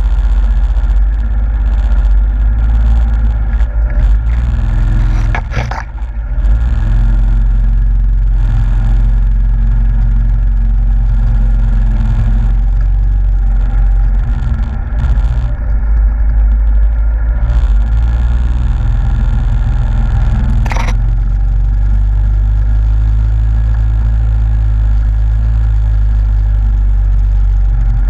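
Yamaha Grizzly ATV's single-cylinder four-stroke engine running steadily under way on a dirt trail. Two brief sharp noises break in, about five and a half seconds in and again around twenty-one seconds.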